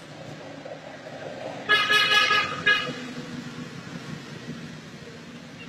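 A vehicle horn honks: one toot of about a second, then a short second toot, over a low steady traffic rumble.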